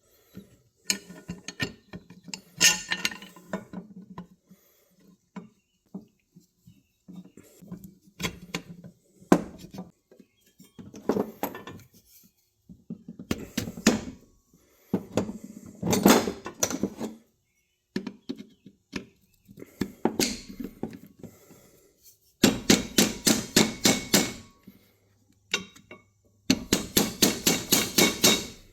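Metal tools and machine parts clinking and knocking as they are handled, with two runs of rapid, even clicking in the last few seconds.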